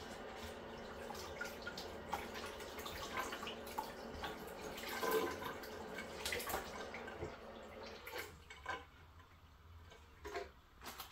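Kitchen faucet running as dried chiles are rinsed under the stream in the sink. The water noise drops away about eight seconds in, leaving a few light knocks.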